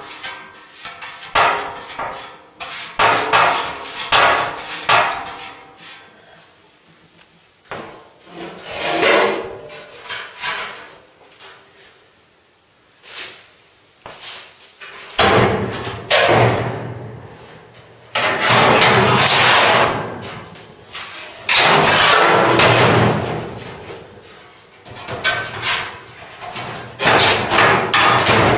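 Sheet-steel panel knocking, clattering and scraping as a new Ford Cortina Mk3 bulkhead is handled and offered up into the bare body shell. Sparse knocks at first, then a run of loud, rough bangs and scrapes in the second half.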